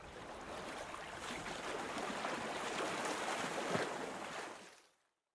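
Rushing-water sound effect like ocean surf, building gradually and then fading out shortly before the end.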